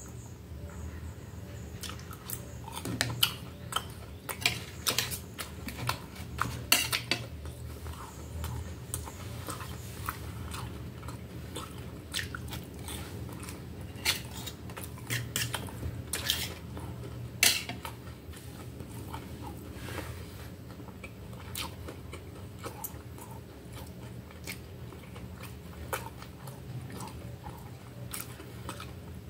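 Close-up eating sounds: chewing, with a fork and knife clinking and scraping on a metal plate. The clinks come irregularly, the sharpest ones about a third and about half way through.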